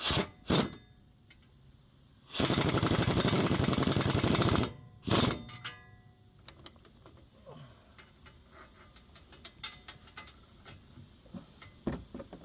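An impact wrench hammering rapidly for about two seconds, running a suspension bolt or nut tight, with a few short bursts around it and faint scattered clicks afterwards.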